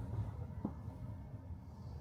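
Low, steady rumble of a tram car, with one faint click about two-thirds of a second in.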